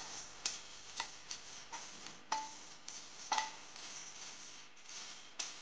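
Coriander seeds and dried red chillies being dry-roasted and stirred with a wooden spatula in a stainless steel pan: faint scraping with irregular light clicks, about one or two a second.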